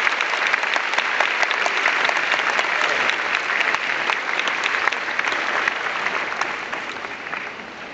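Audience applauding, many hands clapping at once, dying away over the last two seconds.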